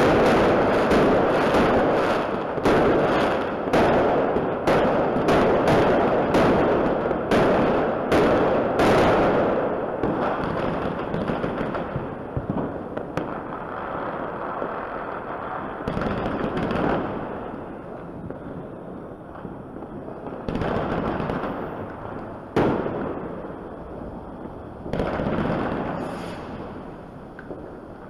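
Aerial fireworks shells going off: a rapid barrage of bangs for the first nine seconds or so, then thinning to single bangs every few seconds with a lower crackle and rumble between them.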